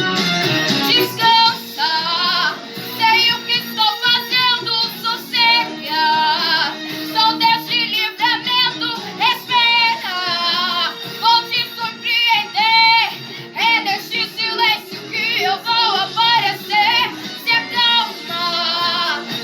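Worship song: a high, child-like or female voice singing a melody with vibrato over a steady instrumental accompaniment.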